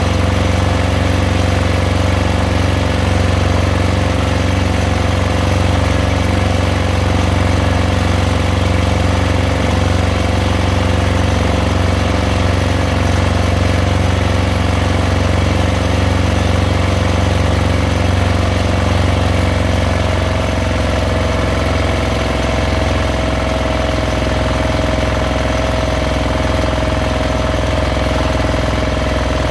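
Fishing boat's engine running steadily at low speed; about twenty seconds in its pitch rises slightly as the engine speeds up.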